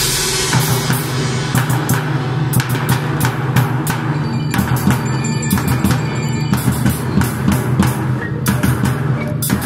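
Indoor percussion ensemble playing: steady low notes are held under repeated drum and cymbal strikes, with mallet keyboards among the instruments.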